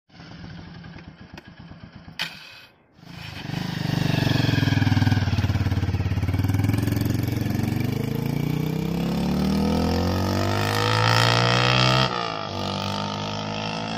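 A modified old-model Bajaj Pulsar 150 with its single-cylinder engine made loud, running at first and then pulling away hard. The exhaust note climbs in pitch in several steps as the bike accelerates through the gears, then drops to a quieter, lower note about two seconds before the end.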